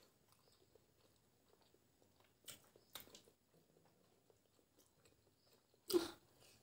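Quiet mouth sounds of people chewing and biting soft boiled eggs, with scattered soft clicks and smacks. A short, louder mouth sound comes near the end.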